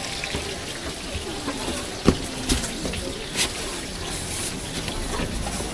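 Busy street-food stall: a steady hiss with a few sharp knocks about two and three seconds in, and faint voices in the background.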